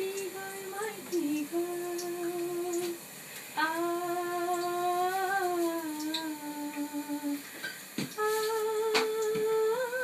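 A woman humming a slow tune in long held notes that sway gently in pitch, in three phrases with short pauses between them. A sharp knock sounds near the end.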